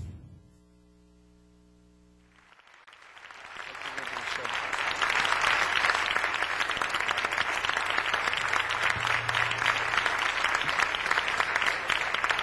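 Congregation applauding, swelling up from about three seconds in and then holding steady.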